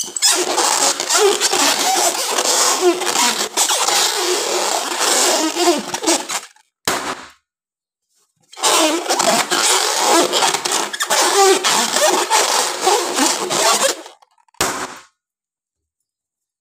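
Hands rubbing and squeezing inflated rubber party balloons: a loud, dense squeaking of rubber in two long stretches of about six seconds each, each followed by a short burst of squeaks.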